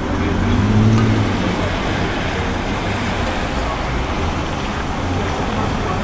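Steady street traffic noise, with a passing vehicle's engine swelling briefly about a second in.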